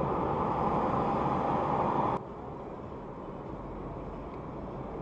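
Steady road noise inside a moving car, tyre and engine rush picked up by a dashcam. About two seconds in it drops abruptly to a quieter steady cabin hum where the footage cuts to another stretch of driving.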